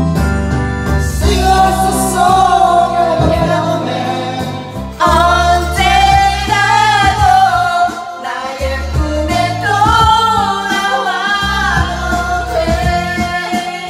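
Karaoke singing: amplified voices sung into handheld microphones over a loud pop backing track, with short breaks in the vocal line.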